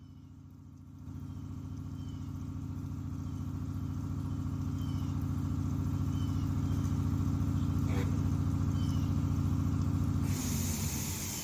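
Shop air compressor running with a steady low hum, growing louder about a second in. About ten seconds in the motor cuts off and a sharp hiss of air begins.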